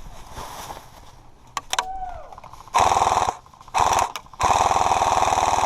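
Electric airsoft gun firing on full auto in three bursts: a short burst, a brief one, then a longer burst of over a second and a half, each a fast rattle of shots driven by the gun's battery. A couple of single clicks come before them.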